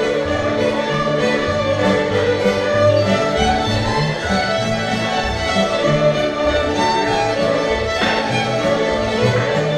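A group of fiddles playing a tune together in unison, with acoustic guitar backing and a moving line of low bass notes underneath.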